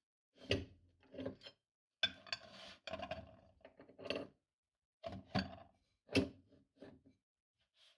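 Colorful chocolate candies crunching and scraping in a meat grinder, in about a dozen irregular short bursts with brief gaps between them.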